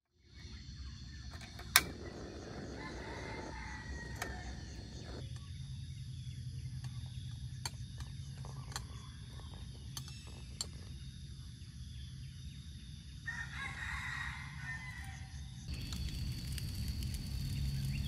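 A rooster crows twice, about two seconds in and again near the end, over a steady high ringing and a low hum. A sharp click comes just before the first crow, and lighter clicks are scattered through.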